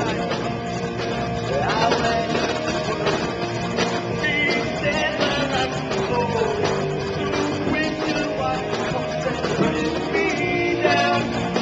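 Live rock band playing: a male singer over electric guitar, bass guitar and drums.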